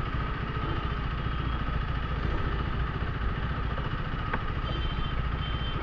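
KTM Duke 390's single-cylinder engine running steadily at low revs under a helmet camera, with a single sharp click about four seconds in.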